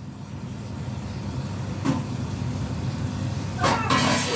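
Steady low background rumble of a kitchen, with a short knock about two seconds in and a brief clatter near the end.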